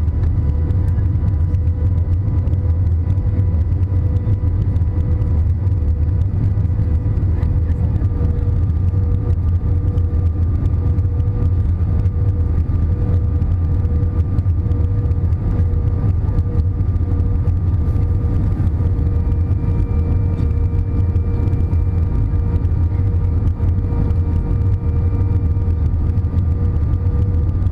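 Airbus A320 cabin noise on the descent to landing: a steady low rumble of the jet engines and airflow, with several steady whining engine tones above it that shift slightly about eight seconds in.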